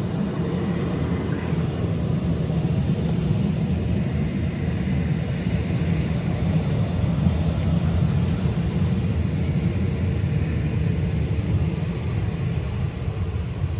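Transilien double-deck commuter train arriving at the platform, a steady loud rumble of wheels on rails as the carriages run past. A faint high squeal joins in about ten seconds in.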